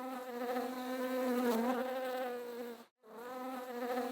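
Bee buzzing: a steady, pitched hum that breaks off abruptly for a moment about three seconds in and then starts again.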